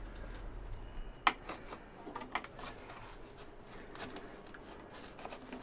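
Light scratching and scattered small clicks of a pen tip being poked and scraped in old drilled holes in the thin plywood inner lining of a boat's hull, probing the hollow space behind it.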